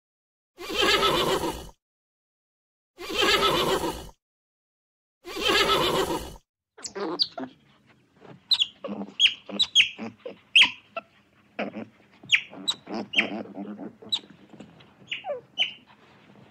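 An animal call repeated three times, each about a second long, with silent gaps between. It is followed by a run of many short, high chirps that sweep downward in pitch.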